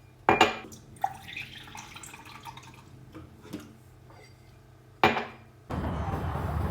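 Household objects handled in a small room: several sharp clinks and knocks, like dishes or glassware being set down. About a second before the end, a loud steady rushing noise starts suddenly.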